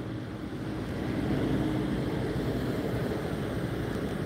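Steady low rumble of vehicle noise, swelling slightly after the first second.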